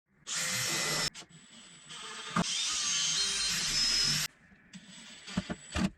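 A power tool working wood in three short runs, each a noisy high-pitched whir with a steady thin whine, with a few sharp clicks near the end.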